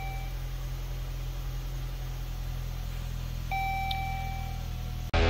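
2016 Dodge Journey's freshly rebuilt 2.4-litre four-cylinder idling steadily: it has started, which shows the cam timing was set correctly. A steady dashboard warning beep ends just after the start and sounds again for about a second a little after three seconds in, and music cuts in at the very end.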